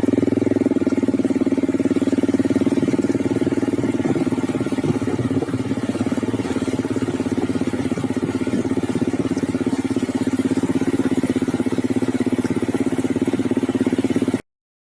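A small engine running steadily at a fairly constant speed; the sound cuts off suddenly near the end.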